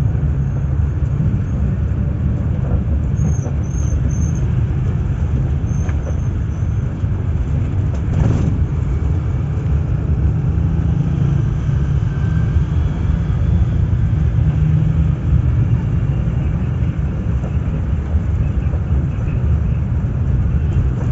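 Steady low engine and road rumble of a local bus, heard from inside the cabin while it drives, with a brief knock about eight seconds in.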